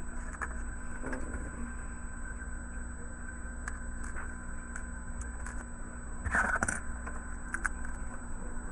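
Small plastic toy parts and packaging being handled: scattered faint clicks and one short crinkly rustle about six seconds in, over a steady background hum.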